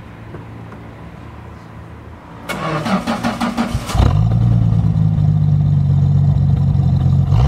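Dodge Serra Boulevard 3700 GT's 3.7-litre slant-six engine cranked by the starter for about a second and a half, catching about four seconds in and settling into a loud, steady idle, heard at the exhaust tips.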